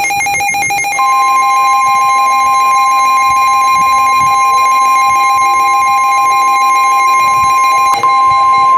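NOAA Weather Radio Emergency Alert System attention tones: a loud, steady electronic tone, joined about a second in by a second, slightly higher steady tone, the lower one cutting off near the end. The tones announce an incoming warning broadcast.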